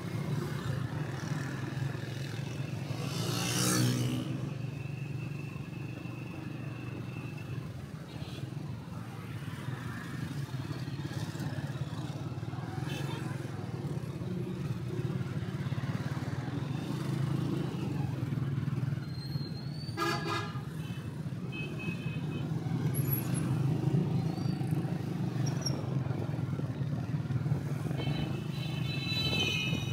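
Busy city-street traffic heard from a moving motorbike: a steady engine and road drone, with vehicle horns honking at several points, the loudest blast about twenty seconds in.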